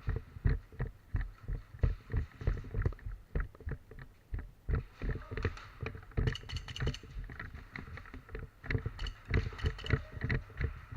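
Footsteps thudding unevenly a few times a second, with gear rattling and brushing against the body-worn camera. Bursts of sharper clicking come about six seconds in and again near the end.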